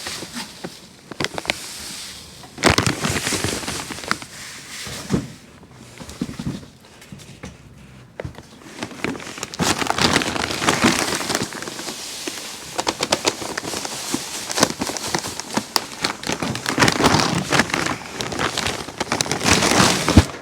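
Footsteps crunching through snow: loud, irregular crackling that comes in uneven waves.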